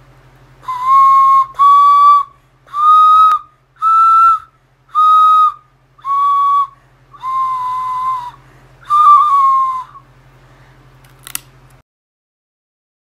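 Homemade carrot recorder being played: eight whistle-like notes with some breath noise around them, stepping up in pitch and then back down in a short simple tune. A sharp click follows near the end, then the sound cuts out.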